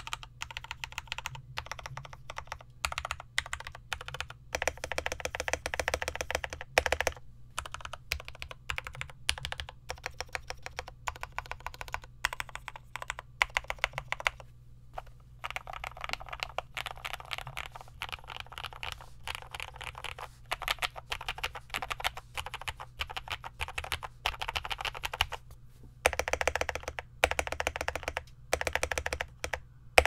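Typing on a Tecware Veil 87 tenkeyless mechanical keyboard with Cherry MX Hyperglide Black linear switches: runs of rapid keystroke clatter with a few short pauses, and a fast, dense flurry near the end.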